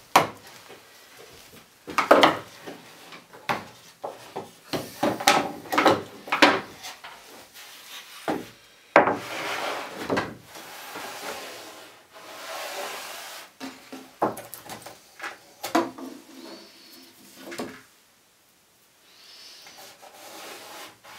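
Pine panels, a wooden saw guide rail and quick clamps being handled on a workbench: a string of sharp wooden knocks and clatters, with boards scraping as they slide over each other.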